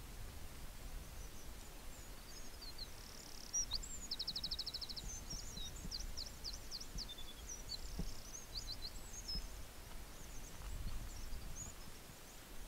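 A small songbird singing high, quick phrases: a rapid run of repeated notes about four seconds in, then short sweeping notes, over a steady low rumble.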